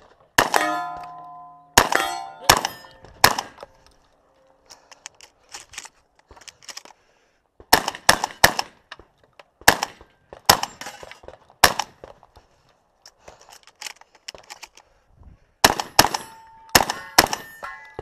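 Shotgun fired in rapid strings at steel targets, about fifteen shots in four bursts, with the hit plates ringing on after several of them. Smaller clicks and rattles come in the pauses between bursts.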